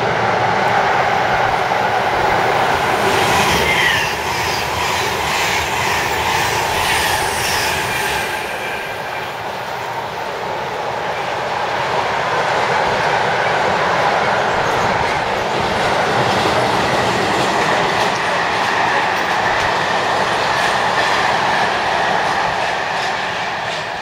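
Car transporter wagons rolling over the rails with clattering wheels and some wheel squeal, dying away about 8 s in. Then a Class 390 Pendolino electric train runs through at speed with a rushing noise that builds and eases off near the end.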